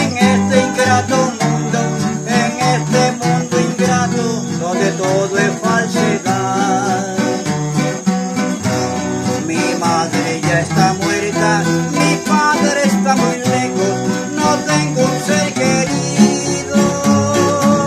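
Two acoustic guitars, a nylon-string classical guitar and a cutaway acoustic, playing together in an instrumental passage of a Latin American folk song, with a steady bass line under a picked melody.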